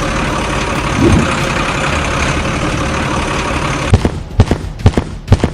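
A vehicle engine running steadily. About four seconds in it drops away and a few sharp knocks follow.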